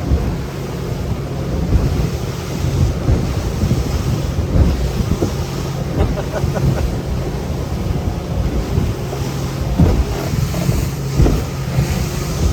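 Boat motor running with a steady low hum while wind buffets the microphone and choppy waves slap against the hull in irregular knocks.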